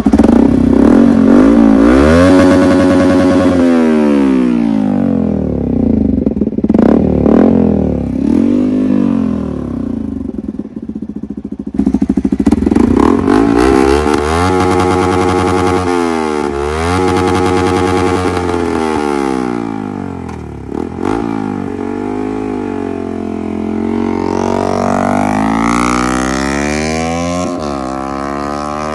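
Motorcycle engine revving hard again and again, its pitch climbing and dropping many times over. It runs quieter through the last several seconds.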